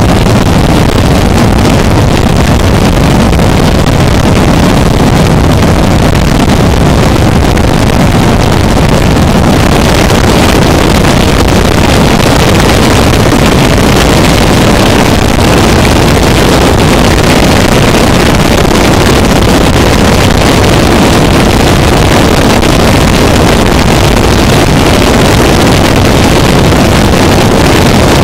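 Harsh noise music: a loud, unbroken wall of dense noise, heaviest in the low end, growing brighter in the upper range about ten seconds in.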